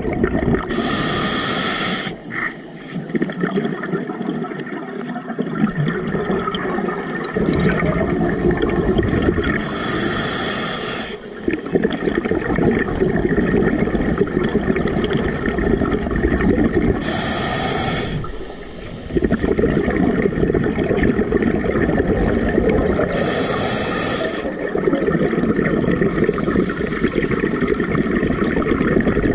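Scuba diver breathing through an open-circuit regulator underwater: a short hissing inhale four times, about every six to seven seconds, each followed by a long rumbling rush of exhaled bubbles.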